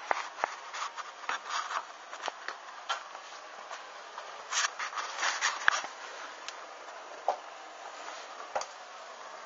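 Small fire on burning tissue and debris crackling: irregular sharp clicks over a steady hiss, bunched in the first two seconds and again around the middle.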